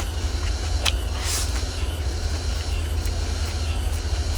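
Eating sounds close to the microphone: a short slurp about a second in and a few small clicks of mouth or utensils, over a steady low rumble.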